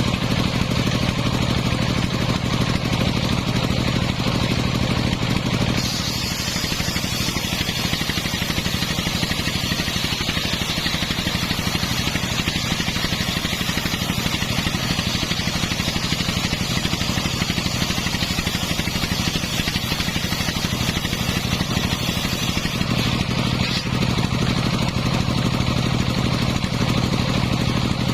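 The engine driving a homemade circular sawmill runs steadily. From about six seconds in until near the end, a loud hiss joins it as the spinning blade cuts through the coconut-palm log.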